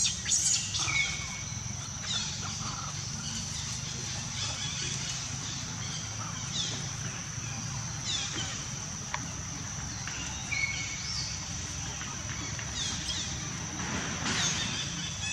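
Short, high chirping calls that fall in pitch, about half a dozen spread through, over a steady high-pitched hum and a low steady rumble.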